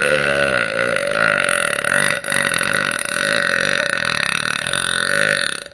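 A woman's single long, loud burp lasting about five and a half seconds, with a brief break about two seconds in, then cutting off abruptly.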